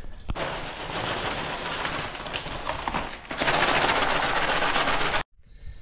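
Dry cat food kibble pouring from a plastic bag and rattling onto a sheet of glass. It gets louder and denser a little past halfway, then stops abruptly near the end.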